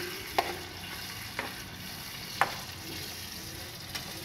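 Chicken pieces and freshly added tomato paste sizzling in a frying pan while being stirred with a spatula. The spatula knocks sharply against the pan four times, about once a second.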